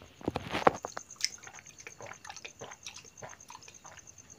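Water poured from a spouted metal lota (ankura) straight into a person's open mouth as he drinks it down, with a cluster of sharper wet clicks and gulps in the first second, then smaller ones.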